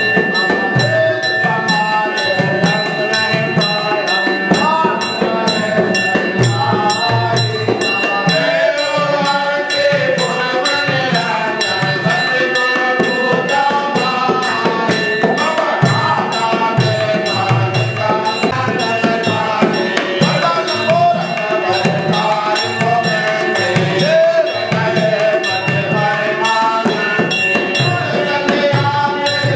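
Devotional group singing with a drum and hand percussion keeping a steady beat.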